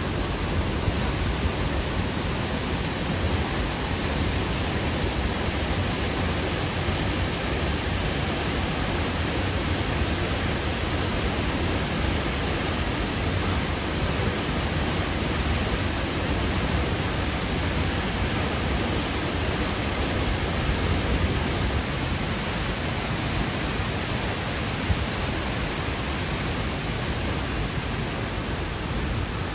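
Waterfall of almost 30 metres, falling water making a steady rushing noise.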